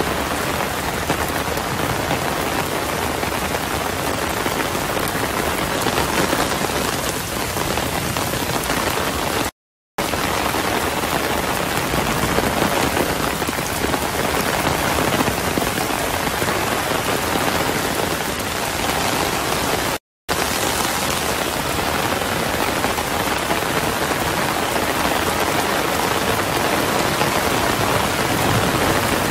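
Heavy rain pouring steadily onto pond water and foliage, a dense even hiss. It cuts out briefly twice, about a third and two thirds of the way through.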